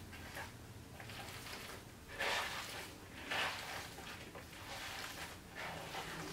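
Hands kneading a wet meatloaf mix of ground venison, egg, oats and chopped vegetables in a plastic bowl: soft squelching and squishing, with two louder squishes a little after two seconds in and again about a second later.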